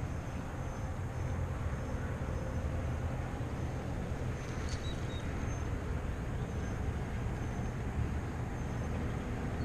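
Steady low rumble of outdoor background noise, with a faint, short high chirp about halfway through.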